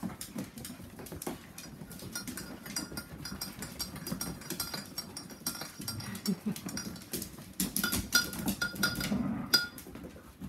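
A litter of whippet puppies and an adult whippet scrabbling on a hard floor, claws clicking, with repeated light metallic clinks and ringing, clustered near the end, and some puppy whimpering and grunting.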